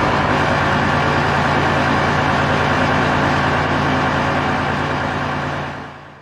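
Tank engine idling with a steady, heavy drone, fading out near the end.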